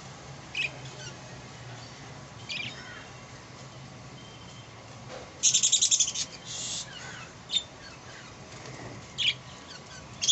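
Budgie chicks chirping: short high chirps every couple of seconds, and a loud, rapid raspy chatter a little past the middle.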